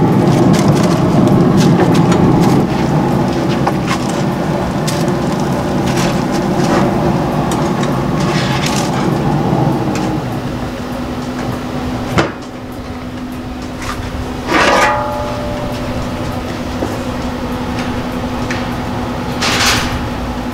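Aluminium foil crinkling, with clicks, over a loud rushing noise for the first ten seconds. Then the steady hum of a Louisiana Grills SL700 pellet grill's fan, broken by a sharp knock a couple of seconds later and two brief scraping noises.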